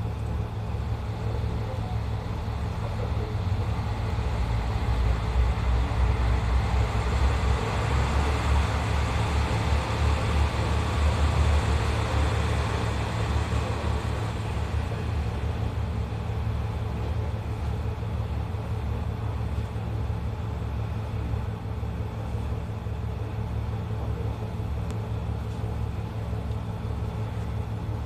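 Steady low rumble of a KiHa 54 diesel railcar's engine idling, heard from inside the car. Another diesel train passes on the adjacent track: its noise builds after a few seconds, is loudest around the middle, and dies away after about half the clip.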